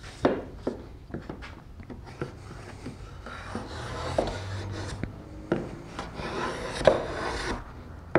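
Lie-Nielsen rabbet block plane cutting shavings from the edge of a wooden board by hand. First come sharp knocks and short strokes, then two longer scraping cuts in the second half.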